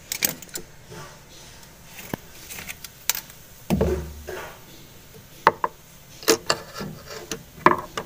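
Scattered light metallic clicks and knocks, with a duller thump about four seconds in, as the brake lever and brake hub under a Whirlpool automatic washing machine are handled.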